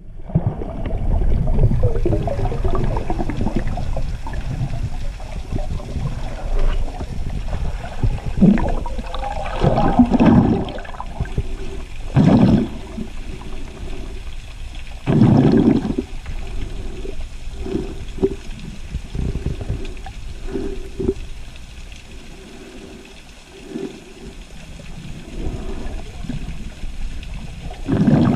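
Water sloshing and gurgling heard underwater, with several louder rushing surges and a run of short bubbly bursts in between.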